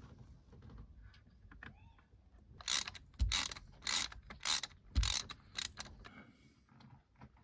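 Socket ratchet wrench clicking through about six short strokes in quick succession as it turns the bolt of a timing-belt idler pulley, with a couple of dull knocks among them.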